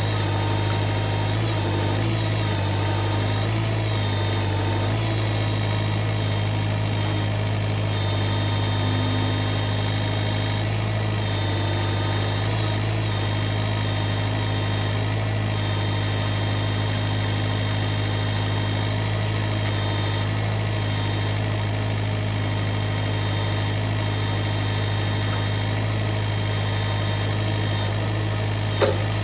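Kubota MX5400 tractor's diesel engine running steadily at an even speed, with a single short knock near the end.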